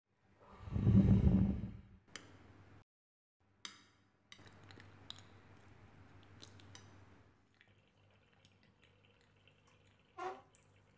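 One long puff of breath blowing out a candle, lasting about a second and a half. Faint clinks and small knocks follow.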